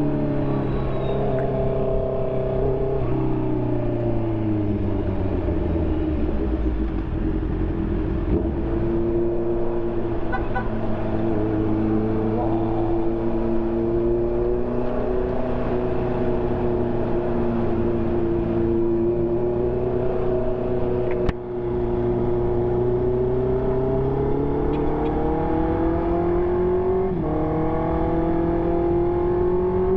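2020 Honda CB650R's inline-four engine running through an SC Project aftermarket exhaust while riding: the revs fall over the first several seconds, hold steady for a long stretch, then climb, drop suddenly near the end and climb again. A single sharp click comes about two-thirds of the way through.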